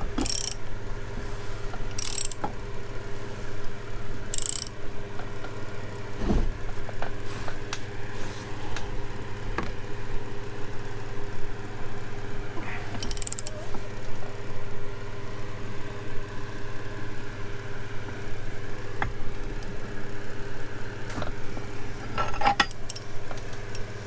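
Short metallic clinks and scrapes of a tool working the locking ring nut tight on the outboard lower unit's prop shaft housing. Five brief sharp bursts come at irregular intervals with scattered clicks between them, over a steady low hum.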